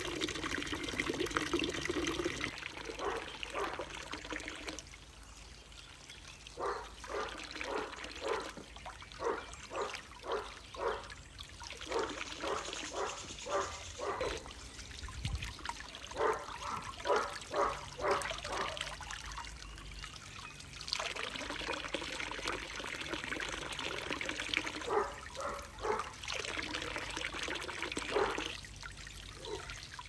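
Water pouring and trickling. It is broken by several runs of rhythmic strokes, about two a second.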